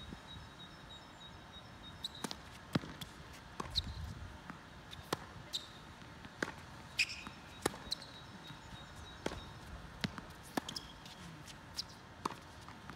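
Tennis rally: sharp pops of racket strings hitting the ball and the ball bouncing on the court, one every half second to a second, starting about two seconds in.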